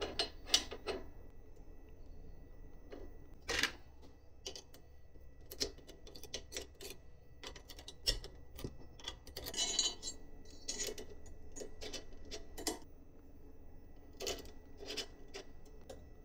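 Scattered small clicks, taps and knocks of parts and hand tools being handled during 3D printer assembly, with a brief rustle about ten seconds in.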